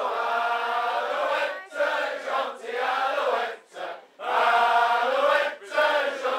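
A crowd of men singing a song together in chorus, in phrases broken by short pauses.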